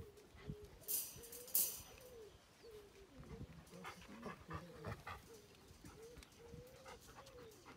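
Puppies whining and whimpering in a string of short, repeated high notes as they meet adult dogs through a wire pen. There are a couple of sharp clatters about a second in.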